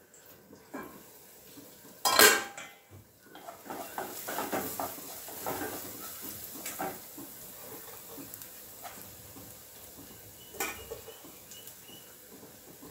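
A steel pan lid clatters loudly about two seconds in. Then a wooden spatula stirs and scrapes chopped amaranth stems frying in a frying pan, with a light sizzle under the repeated strokes and another knock near the end.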